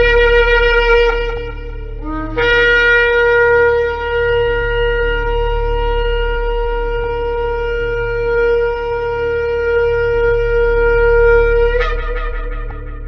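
Shofar blasts. A note ends about two seconds in, a short blip follows, then one long held blast of nearly ten seconds that jumps up in pitch at the end and dies away. A low steady hum sits underneath.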